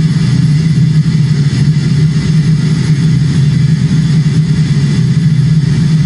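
Loud, steady low drone with a hiss above it, played over loudspeakers: sound art built from recordings made in a morgue, crematorium and dissection room.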